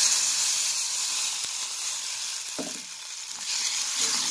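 Water poured into a pot of hot oil and fried spices, sizzling and hissing hard as it hits, the hiss easing a little and then picking up again as the liquid heats.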